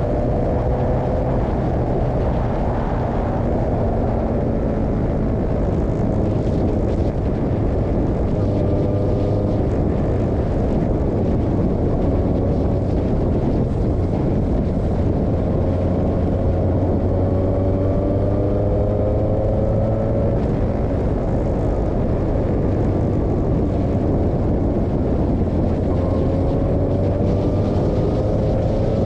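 Formula 2000 race car's engine heard from on board at speed, its note climbing in pitch four times as the car accelerates through the gears, with a steady rush of wind and road noise underneath.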